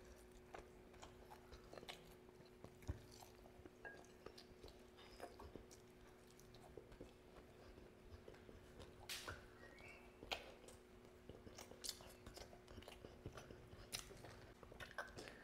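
Faint close-up chewing and biting of grilled chicken eaten by hand, with scattered wet mouth clicks and small crunches over a faint steady hum.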